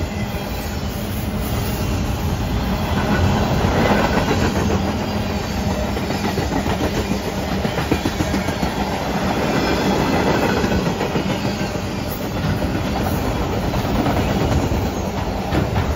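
Freight train tank cars and autorack cars rolling past: a steady rumble and rattle of steel wheels on rail, swelling and easing a little, with a few sharp clicks of wheels over rail joints.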